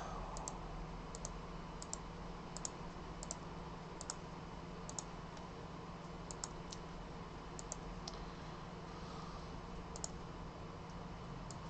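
Computer mouse clicking, mostly in quick pairs about once a second, over a faint steady low hum.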